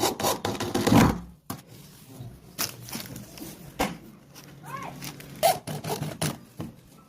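Carpentry work sounds: a scraping, rubbing stretch that is loudest about a second in, then a handful of sharp knocks.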